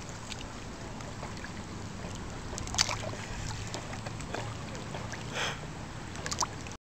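Steady outdoor background noise with a low hum and a few faint clicks, cutting off abruptly near the end.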